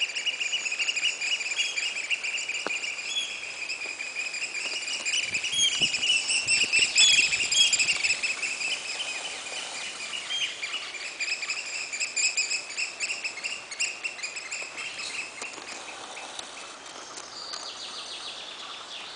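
Eurasian oystercatchers piping: a fast, continuous run of shrill calls that is loudest about seven seconds in and fades toward the end. A few low thumps come around the middle.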